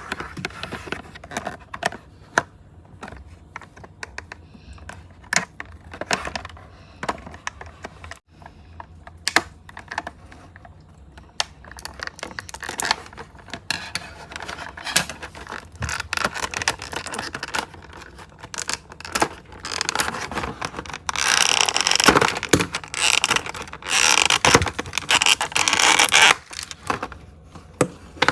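Hands unpacking a toy: irregular clicks, taps and scrapes of plastic and cardboard packaging, with a longer, denser stretch of rustling handling about three-quarters of the way through.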